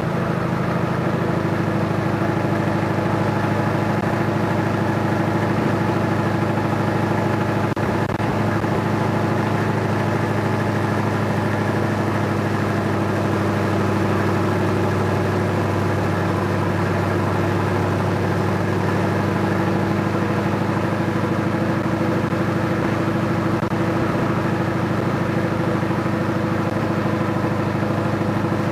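Heavy truck's diesel engine running at a steady cruising speed, heard as a continuous drone from inside the cab.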